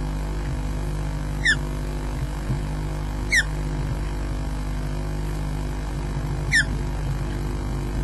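Osprey giving three short, sharp whistled calls a couple of seconds apart, each a quick falling note, over a steady low background hum.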